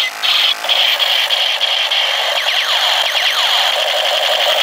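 Battery-operated toy AK-47 rifle sounding its electronic firing effect: a steady mechanical buzz with a high hiss, with sweeping tones layered in about halfway through.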